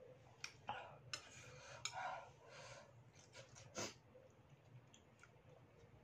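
Eating sounds: a metal spoon and fork clink a handful of times against a bowl of noodle soup, with chewing and breathing between the clinks.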